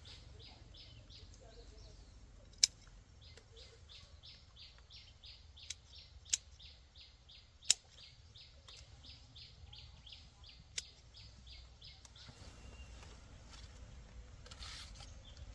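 Faint, even chirping: short high chirps about three a second, broken by a few sharp clicks. The chirping stops about three quarters of the way in and gives way to a noisy rustle over a low rumble.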